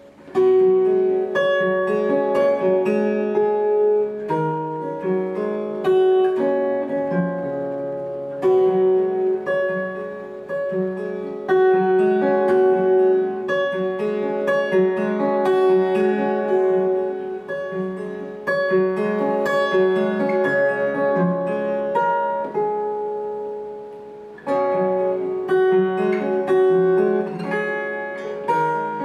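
Solo acoustic guitar played live, a melodic piece of plucked notes ringing over lower bass notes. It starts a strong phrase right away, eases off and grows quieter a little after twenty seconds, then comes back in loudly with a new phrase.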